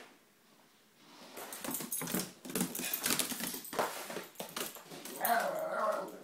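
Italian greyhound's paws and claws scuffing and thudding on a vinyl exercise mat and wood floor as it jumps and bounds about, followed near the end by a short wavering dog whine.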